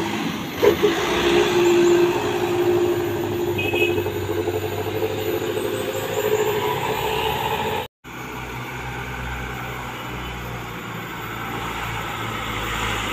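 Diesel truck engines: a laden Mitsubishi Fuso Canter light truck runs through a sharp bend with a steady droning note, then, after a sudden cut about eight seconds in, another truck's engine runs steadily and slowly grows louder as it approaches.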